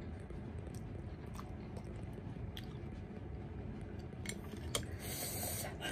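A person chewing and eating spicy Korean instant ramen noodles with chopsticks, soft mouth sounds with faint light clicks, and a short hiss near the end.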